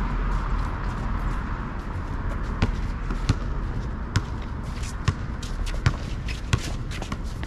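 A basketball dribbled on an asphalt court: a steady run of about six bounces, a little under a second apart, starting about two and a half seconds in.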